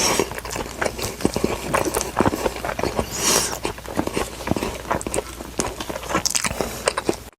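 Close-up chewing and biting of food, with dense wet crunches and clicks. It cuts off suddenly to silence near the end.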